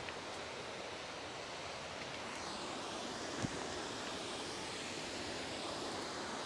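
Steady rushing roar of a waterfall running full after rain, with a faint click about three and a half seconds in.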